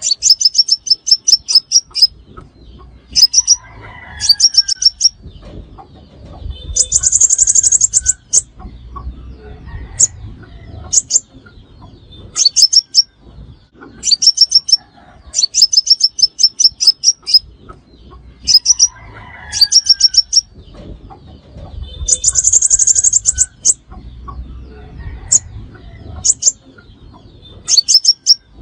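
Sunbird song from a lure recording: bursts of rapid, high, thin chipping notes and buzzy trills separated by short pauses, the same sequence repeating about every fifteen seconds.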